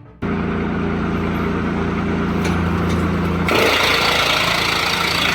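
Drum wood chipper running with a steady machine hum that starts abruptly; about three and a half seconds in, a louder rushing noise joins it.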